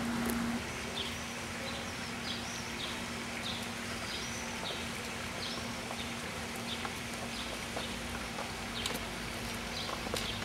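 A small bird chirping repeatedly in short calls over a steady low hum. Near the end, sharp clicking footsteps: high heels on stone steps.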